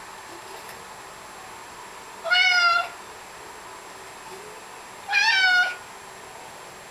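A 16-pound Maine Coon cat meowing twice, about three seconds apart, each a short, high-pitched little meow like a kitten's.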